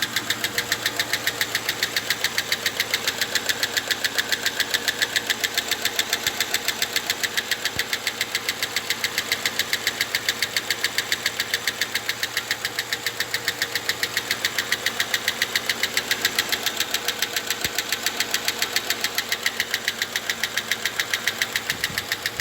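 Car engine running with a rapid, even ticking knock from the valve train, which the owner takes for the hydraulic lifters knocking. He puts it down to lifters that were refitted without being pressed out after a valve stem seal job, holding valves open and making the engine misfire.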